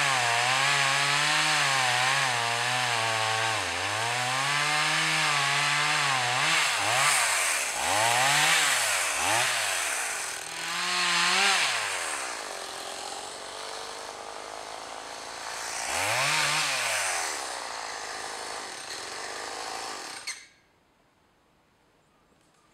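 Stihl MS 180 C two-stroke chainsaw cutting branches off a felled trunk, its engine note wavering under load at first, then blipped up and down in several short revs with idling between. It shuts off abruptly about twenty seconds in.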